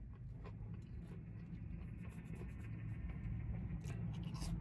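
Faint chewing of crispy fast-food french fries: scattered soft crunches and clicks over a steady low hum.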